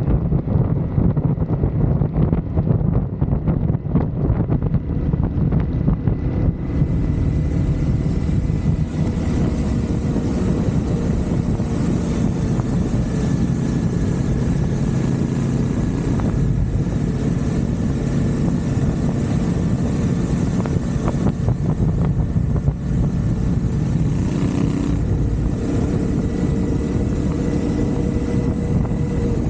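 Motorcycle engine running while riding along, with steady wind noise rushing over the microphone; a higher hiss joins about seven seconds in.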